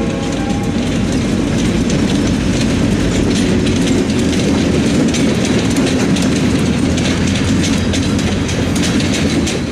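Freight train's diesel locomotives passing close by: a steady heavy engine rumble with wheels clicking rapidly over the rail joints.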